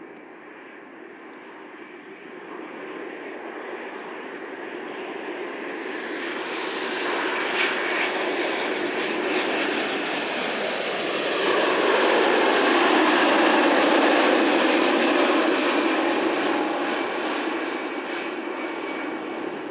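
Jet engines of a Boeing 787-9 Dreamliner on final approach, a steady noise growing louder as the airliner comes in low and passes. It is loudest from about twelve seconds in, deepening as it passes, and eases a little near the end.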